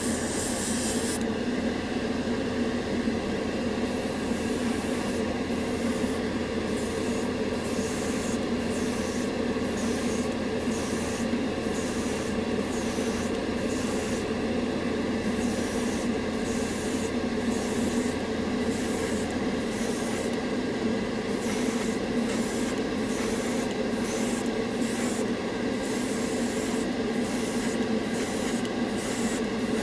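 An airbrush spraying lacquer paint in repeated short bursts of hiss, roughly one a second, over a steady motor hum.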